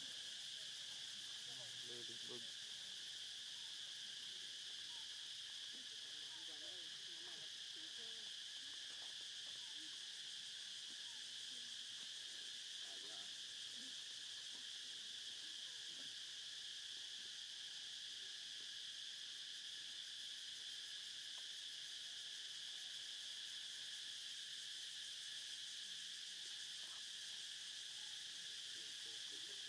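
Steady insect chorus: a continuous, even, high-pitched buzzing drone that does not change.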